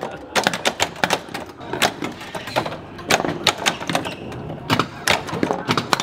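Homepin Thunderbirds pinball machine in play: rapid, irregular mechanical clacks of the flippers and solenoids and the steel ball striking targets, with faint electronic game tones between them.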